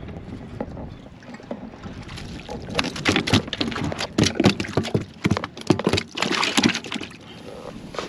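Water splashing and knocking around a kayak, a flurry of irregular splashes and knocks from about three seconds in until near the end.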